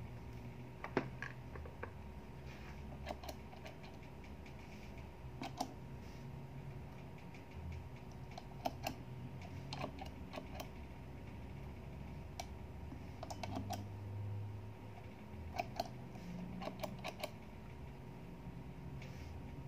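Footswitches on a MIDI foot controller clicking as they are pressed by finger, in irregular pairs and short runs of clicks, over a faint steady hum.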